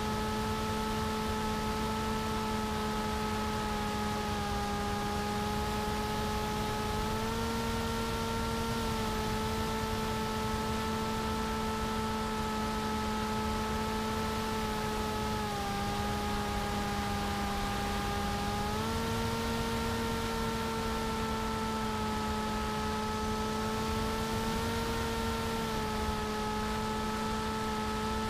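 Brushless pusher motor and propeller of a TBS Caipirinha flying wing, heard from its onboard camera: a steady buzzing whine whose pitch steps up and down a little several times as the throttle changes. Steady rushing wind noise on the camera's microphone.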